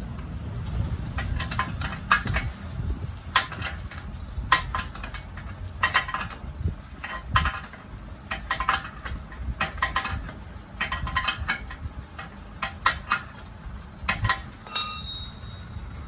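A spanner working loose the axle nut of a Hero Splendor's wheel: irregular metallic clinks and taps of tool on nut, with a brief ringing metallic clang near the end, over a steady low rumble.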